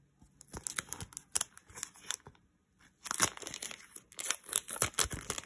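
Sticker sheets and their packaging being handled, crinkling and rustling, with a short lull a little past two seconds in before a denser stretch of crinkling.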